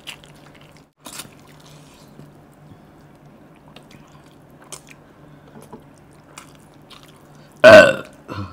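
Quiet, wet chewing and small mouth clicks of a man eating a mouthful of curry and rice by hand, over a low steady hum. Near the end, a loud cough, followed by a shorter one.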